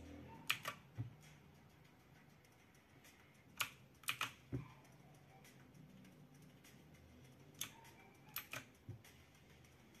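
Keys of a Havit mechanical keyboard with clicky blue switches pressed a few at a time: sharp key clicks in three short clusters about four seconds apart.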